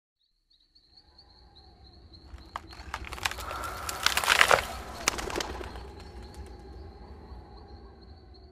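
Production-logo sound effect: a noisy swell that builds to a dense flurry of sharp crackles and flutters about four seconds in, then fades away. It sits over a low rumble and a thin, wavering high whistle.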